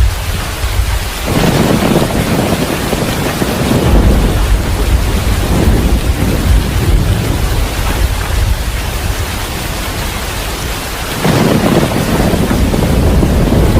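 Heavy rain falling steadily with rolling thunder: one rumble swells up about a second in and rolls on for several seconds, and another builds near the end.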